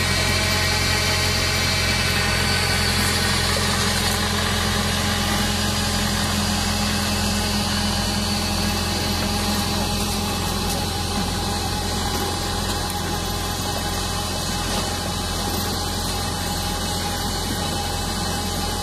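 Tractor engine running at a steady speed, powering a tractor-mounted KIRPY asparagus harvester, with an even, unchanging note and no revving.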